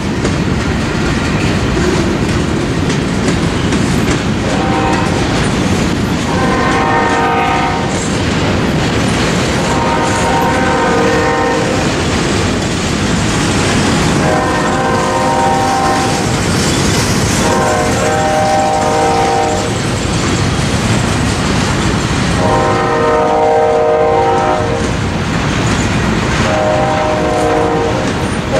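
Loaded covered hopper cars of a freight train rolling past with a steady rumble and clatter of wheels on rail. Over it, a locomotive's multi-note horn sounds about seven long blasts a couple of seconds apart, starting about four seconds in.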